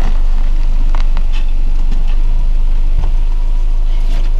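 SUV engine idling steadily with a low hum. Over it come several short crunches of footsteps in snow and a single low thump about three seconds in.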